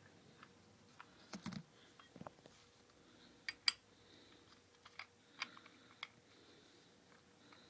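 Scattered light clicks and taps of small metal parts as a scooter pedal arm is handled and threaded on by hand. There are about a dozen sharp, irregular clicks, the loudest about three and a half seconds in.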